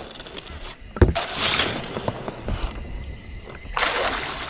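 Water splashing and rushing around a kayak, with a hard knock on the hull about a second in and a second rush of splashing near the end.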